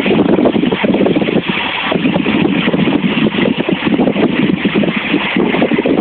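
Loud, steady rush of a large waterfall heard close to where the water falls onto the rocks.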